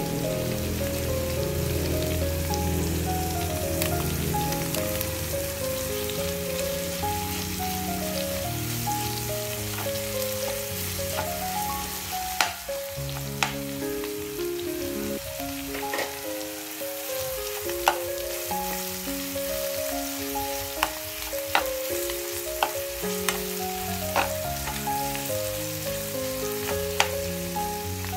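Chicken, tomato and onion sizzling as they sauté in an oiled frying pan, with sharp clicks of a metal spoon against the pan from about halfway through as the food is stirred. Background music with a stepping melody and bass notes plays over it.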